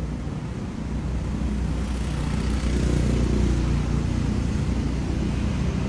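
Street traffic: a motor vehicle's engine rumbling, growing louder about two seconds in and staying up.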